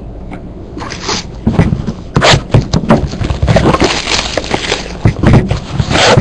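Trading cards and their packaging being handled close to the mic: a run of rustling, scraping and crackling that grows busier about a second in.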